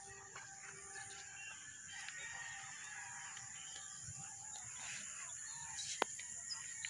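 Faint rooster crowing mixed with other bird calls in the dawn air, with a single sharp click about six seconds in.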